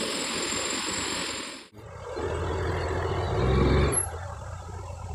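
A loud, steady rushing hiss cuts off suddenly, giving way to a motorbike engine running. The engine rises to a brief rev about three and a half seconds in, then drops back to a lower, steady rumble.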